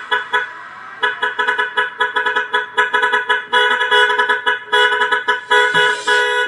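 Truck-horn sample in an electronic dance track, its horn tone pulsing in quick, even rhythmic blasts with no bass beat under it. This is the track's horn break.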